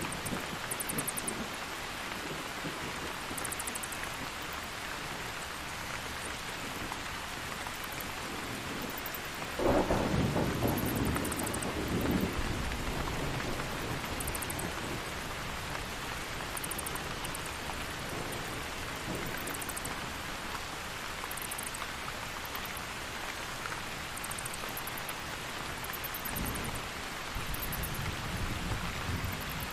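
Thunderstorm: steady rain throughout, with a sudden clap of thunder about ten seconds in that rolls on for a few seconds and a lower rumble of thunder near the end. Short, high bat squeaks come every couple of seconds.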